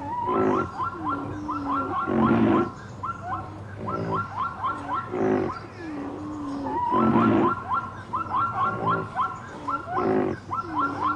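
Wild animal calls: short low calls alternating with rapid runs of quick, hooked chirps, in a sequence that repeats about every five seconds.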